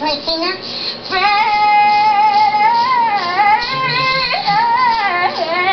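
A high voice singing long held notes with vibrato. The first note is held steady for about two seconds, then wavers, and a new note starts about three seconds in.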